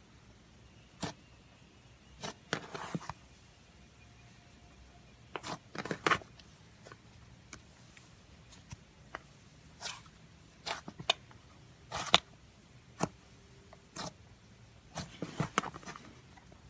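Cloud slime being pressed and stretched by hand, giving irregular soft crackles and pops, some in quick clusters.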